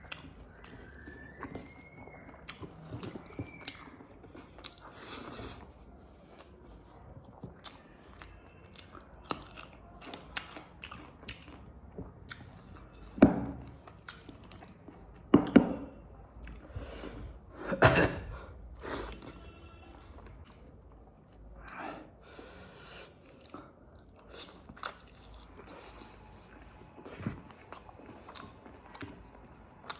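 Close-miked chewing and mouth sounds of someone eating pork with rice: many small wet clicks and smacks, with a few louder mouthfuls near the middle.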